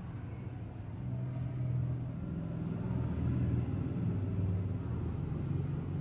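Low engine rumble of a motor vehicle, swelling about a second in and holding steady.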